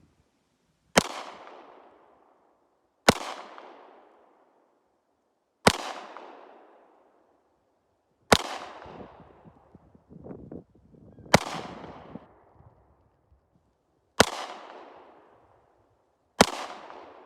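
Glock 43X 9mm pistol fired seven times in slow, aimed single shots about two to three seconds apart, each sharp report followed by a trailing echo.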